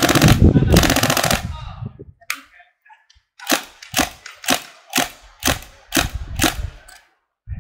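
Northeast Sten MKV gas blowback airsoft replica firing: a rapid full-auto burst that stops about a second and a half in, then after a short pause about eight single semi-auto shots roughly half a second apart, each a sharp crack of the steel bolt cycling.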